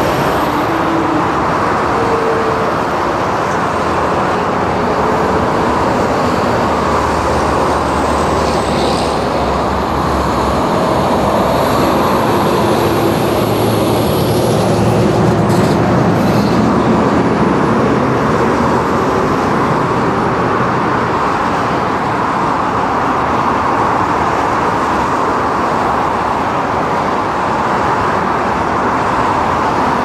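Steady din of road traffic mixed with the diesel machinery of an earthworks site, excavators working beside a dump truck, with no single sound standing out.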